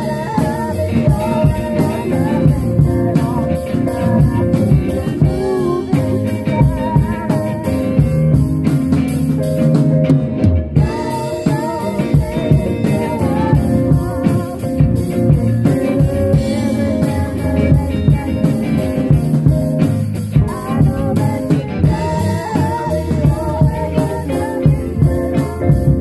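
Live rock band playing a song in a small rehearsal room: a drum kit keeps a steady beat under electric guitar, with a voice singing over it.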